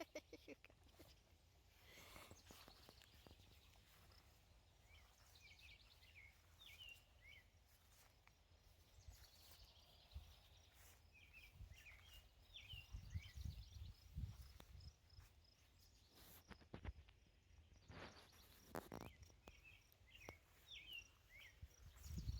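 Faint bird chirping: short quick notes in several brief runs over a low background rumble, with an occasional soft click.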